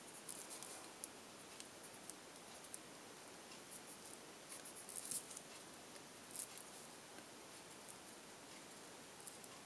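Faint, scattered scratching of a Prismacolor colored pencil on paper in short quick strokes, the strongest flurry about five seconds in.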